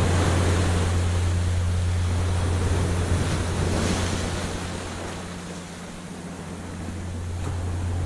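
Ocean surf washing onto a sandy beach over a steady low rumble. The wash fades to its quietest about six seconds in as a wave draws back, then builds again with the next one.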